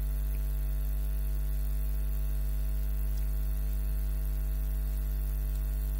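Steady electrical mains hum: a low drone with a stack of evenly spaced overtones, over a faint hiss, holding level throughout.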